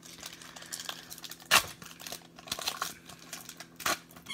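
Foil wrapper of a 1991–92 Upper Deck basketball card pack crinkling as it is torn open by hand. There are two sharp rips, the louder about a second and a half in and another near the end.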